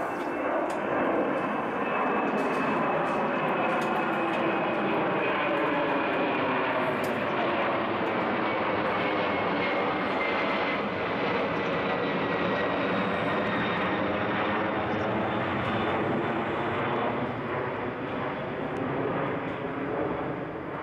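Twin-engine jet airliner passing low overhead: a loud, steady jet roar with a high engine whine that slowly falls in pitch as it goes by. The roar eases slightly near the end as it moves away.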